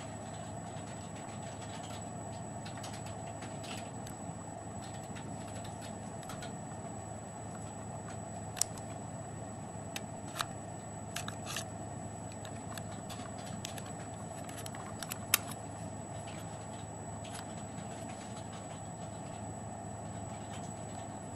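Hands handling a small plastic PDA, the Agenda VR3: a few short, sharp plastic clicks and taps come in the middle stretch, the loudest a single click near the end of that stretch. They sit over a steady background hum with a faint high whine.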